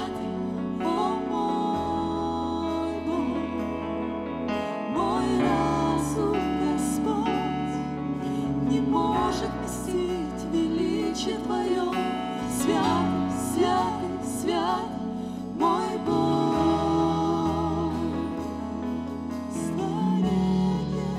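Live worship band playing: several voices singing a slow hymn-like melody in Russian over keyboards and guitars, with a bass line that changes note every couple of seconds and occasional percussion hits.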